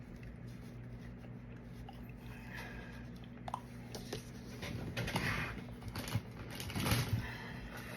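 Hands working at a cast resin piece and its mold insert: rubbing and scraping with a few small clicks and knocks, busiest in the second half, over a steady low hum.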